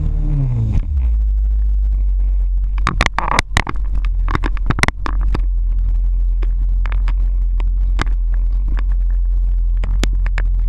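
Jet ski engine coming off the throttle, its pitch falling during the first second, then running low and steady. A cluster of sharp knocks from about three to five seconds in, and a few single clicks later.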